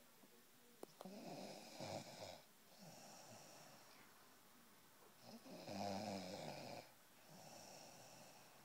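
A person snoring in their sleep: two louder snores about four and a half seconds apart, each followed by a softer breath.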